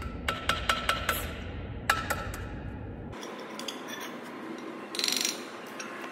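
Sharp clicks in the first two seconds, then a short, fast ratcheting rattle about five seconds in, from the lid of a glass jar being twisted and worked by hand because it won't come off.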